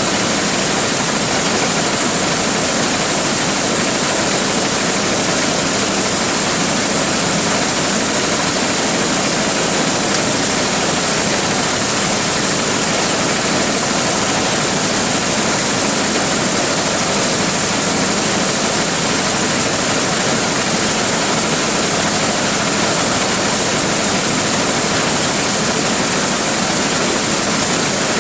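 Large corn threshing machine running steadily, its engine and blower giving a loud, even rushing noise with a strong high hiss that never changes.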